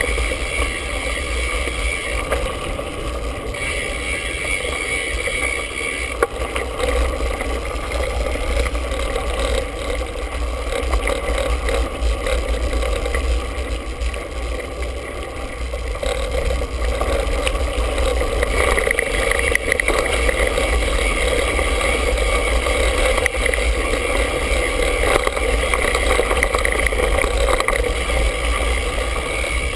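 Mountain bike ride heard from a handlebar-mounted GoPro: a steady rumble of tyres over the dirt trail, with the bike rattling in many small knocks and wind buffeting the microphone. It gets louder past the middle.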